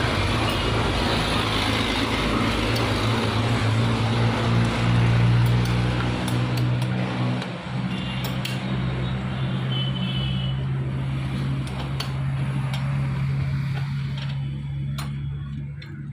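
A steady, loud motor hum with a constant low tone, heavily mixed with noise for the first half. The noise eases about halfway through, and a few sharp metallic clicks follow.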